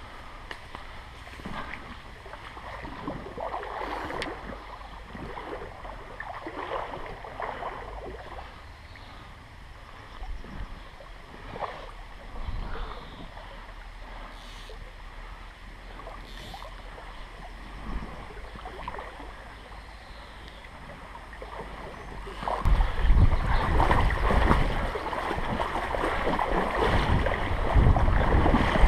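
Shallow, clear creek running, with scattered light knocks and rustles from handling the fly rod and line. About three quarters of the way through, a much louder low rumble of wind on the microphone takes over.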